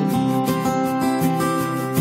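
Background music with strummed acoustic guitar chords keeping a steady beat.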